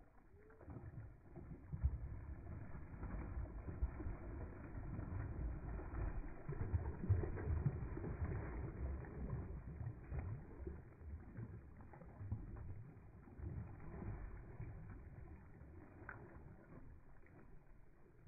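Water splashing and churning as a group of spawning gar thrash at the surface in shallow water. It builds about two seconds in, is busiest through the middle and dies down near the end.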